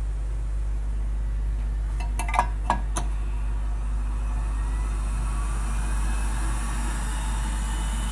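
A steady low hum, with a few light clicks and clinks about two to three seconds in, from a hot-air rework handle and tweezers being handled on a repair bench.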